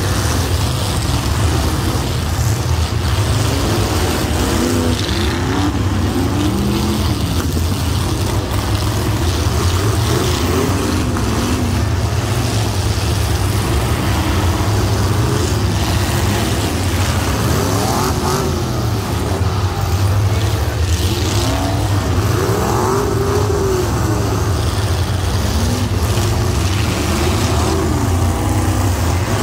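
Several demolition derby cars' engines revving up and down over a steady low rumble, the revs overlapping and climbing higher now and then.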